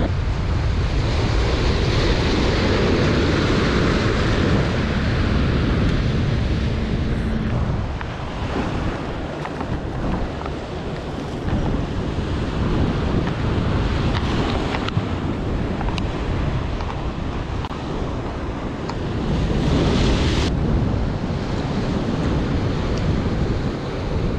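Surf breaking against a rock jetty, with wind buffeting the microphone. The wash is louder through the first several seconds and swells again near the end.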